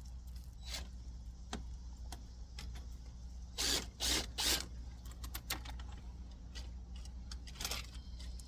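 Metal clicks and clunks from a floor jack and jack stand being set under the car, with a few louder clunks about four seconds in and again near the end, over a steady low hum.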